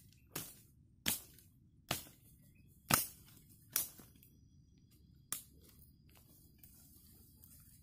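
Dry wood cracking sharply six times, about one crack every second, with a longer pause before the last.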